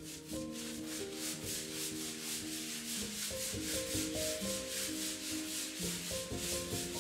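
Shower wall tiles being scrubbed by hand in fast, even strokes, about four or five a second.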